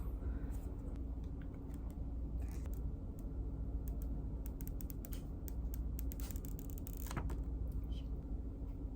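Scattered light clicks and rustles of packaging and a phone being handled during an unboxing, a little busier about two thirds of the way in, over a steady low hum.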